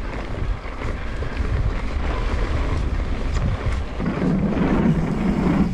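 Wind rushing over the action-camera microphone and mountain-bike tyres rumbling over a gravel trail at speed. About four seconds in, the tyres roll onto a wooden ramp and a louder low drone from the boards sets in.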